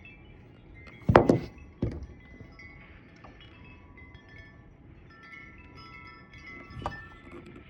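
Wind chime ringing in gusty wind, several metal tones overlapping and fading. Two loud thumps come about a second in, and a smaller one near the end.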